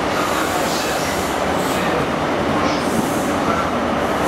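A First Great Western high-speed train's Mark 3 coaches rolling past along the platform: a loud, steady rumble of wheels on the rails, with a higher hiss swelling about once a second.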